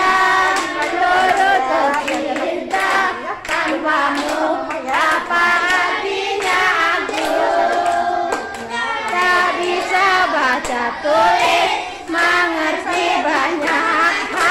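A group of schoolchildren singing a song together while clapping their hands along with it.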